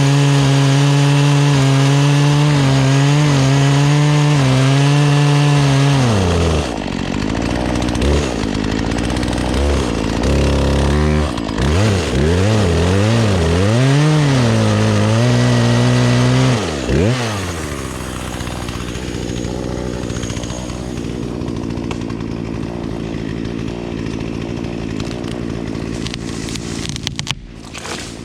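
Petrol chainsaw held at full throttle for about six seconds, then dropping off. It is revved up and down several times, then settles into a quieter, lower-pitched idle for the last ten seconds.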